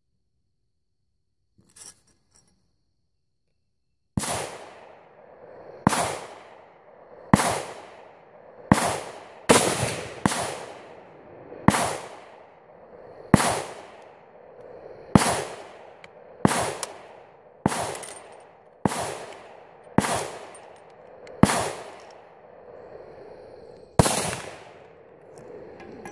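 Steady gunfire on a shooting range: about fifteen shots, one every one to two seconds, each followed by an echoing tail. The shots come too many and too fast for a single bolt-action rifle loaded with three rounds, so most are from other shooters on a busy range. A faint click comes about two seconds in, before the shooting starts.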